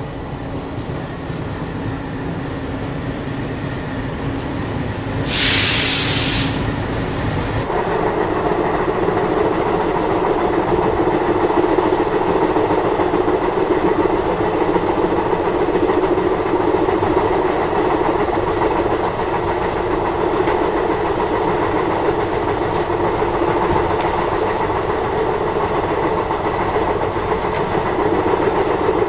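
Express passenger train running, heard from inside a coach: steady wheel and rail noise as it leaves the station. About five seconds in comes a loud hiss lasting about a second. Near eight seconds the sound changes abruptly to a louder, steadier running noise with a hum, broken by a few faint clicks.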